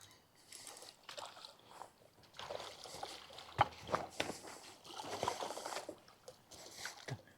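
Water sloshing and splashing in irregular bursts, with a few sharp knocks, as a hooked smallmouth bass is landed in the river.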